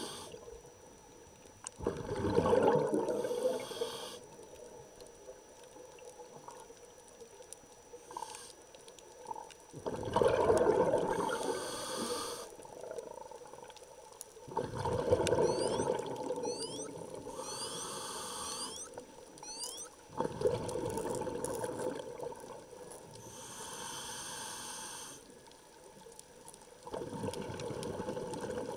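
Scuba diver breathing through a regulator underwater: five bursts of exhaled bubbles, each about two seconds long, five to eight seconds apart. Between them the regulator hisses on each inhale.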